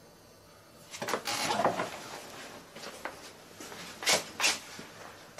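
Clattering and rustling of things being handled, starting about a second in, then two sharp knocks in quick succession near the end.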